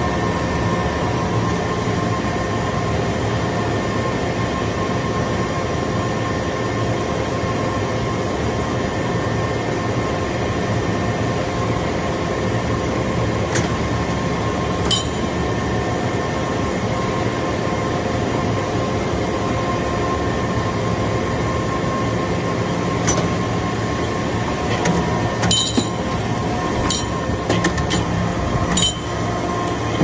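A hydraulic metal-chip briquetting press running, a steady mechanical hum from its power unit. There are a few sharp metallic clinks, mostly near the end.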